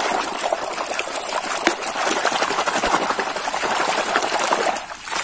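Hand swishing and scrubbing a toy under muddy, sudsy water in a tub: continuous splashing and sloshing that stops shortly before the end.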